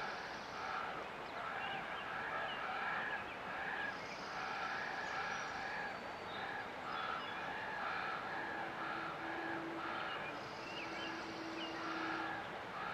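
Birds calling over the steady rush of river water: many short repeated calls, with spells of high, thin trilling. A faint steady hum comes in about eight seconds in and stops about four seconds later.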